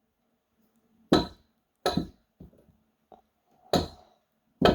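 Hammer strikes driving a shaft through the cluster gear of a 1960 Ford three-speed transmission. There are four sharp, irregularly spaced blows with a short metallic ring, and a few faint knocks between them.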